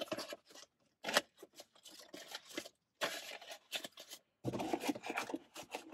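Paper banknotes rustling and flicking in short, irregular crackles as a stack of dollar bills is handled and counted.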